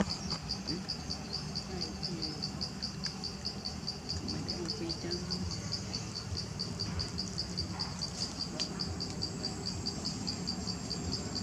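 An insect chirping in a steady, even rhythm of high pulses, about five a second.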